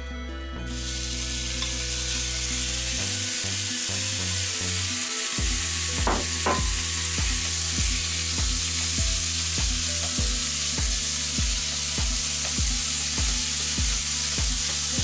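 Pork mince sizzling as it drops into a hot non-stick frying pan with garlic and chilli, the sizzle starting about half a second in and frying steadily on while the meat is stirred and broken up with a wooden spatula. Background music with a steady beat plays underneath.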